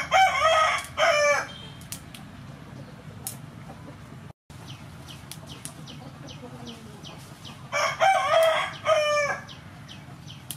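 A rooster crowing twice, about eight seconds apart, each crow a pitched call of several parts lasting about a second and a half. Between the crows come faint light clicks of long beans being snapped by hand.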